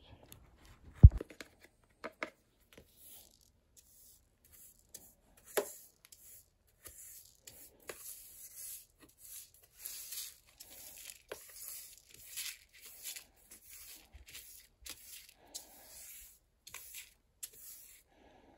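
Small plastic hand brush sweeping scattered cat litter granules into a plastic dustpan: a run of short scratchy strokes, about one or two a second. A single thump about a second in is the loudest sound.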